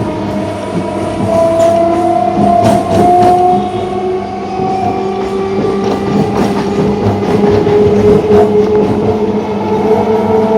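Electric traction motors of a Mumbai 4xxx-series EMU heard from inside its motor coach: a whine of several tones that rise slowly in pitch as the train gathers speed. Over it come a few sharp clicks of the wheels on the rails.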